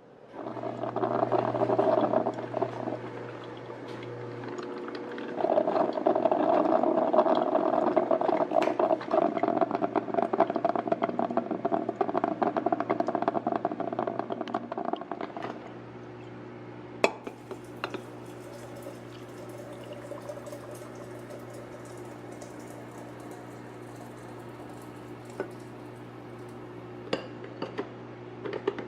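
Water running or pouring in two spells, the longer one about ten seconds, over a steady low hum. After that the hum continues alone, with a few sharp clicks.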